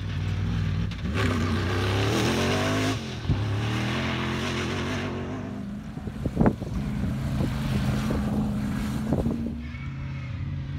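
Comp safari off-road race vehicles' engines revving hard, pitch rising and falling as they accelerate across rough ground, with a few sharp knocks about six and nine seconds in.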